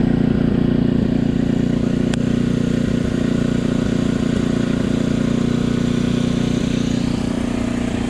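Concrete mixer truck's diesel engine running steadily as it discharges concrete down its chute, with a constant low throb. A single sharp click sounds about two seconds in.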